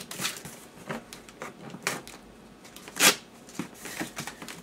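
Objects being handled and packed: a string of irregular rustles and small clicks, with one louder clatter about three seconds in.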